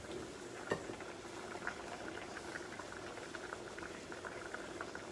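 Pots bubbling on the hob: spaghetti boiling in a little broth and an aubergine and tomato sauce simmering, with many small pops. One sharper knock just under a second in.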